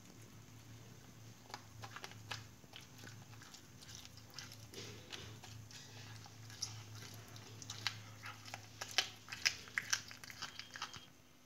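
A cat chewing on a caught rat: a run of irregular crunches and clicks, thickest and loudest in the last few seconds, over a low steady hum.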